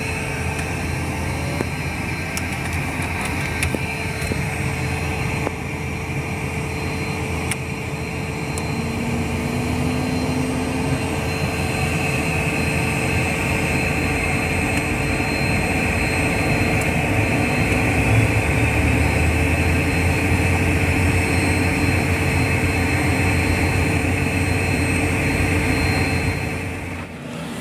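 Citation V's Pratt & Whitney Canada JT15D turbofan engines running, heard inside the cockpit: a steady turbine whine over a rushing roar. It grows louder partway through as an engine winds up during a start.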